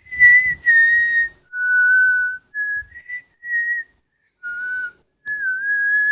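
A person whistling a string of clear notes, some short and some held about a second, wavering and sliding a little in pitch.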